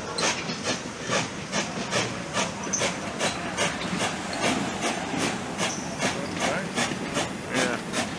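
1897 Baldwin steam locomotive working slowly, its exhaust chuffing in an even beat of about two to three hissing chuffs a second.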